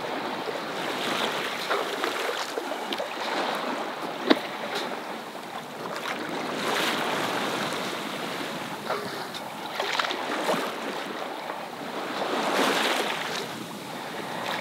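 Water rushing and splashing along a sailboat's hull while under way, swelling and easing every few seconds with the waves, with some wind on the microphone. A few short knocks and clicks come through, the sharpest about four seconds in.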